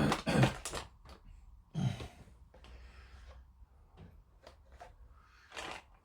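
A few light clicks and knocks of small objects being handled on a hobby workbench, the loudest near the end. There is a short bit of voice at the start and another about two seconds in.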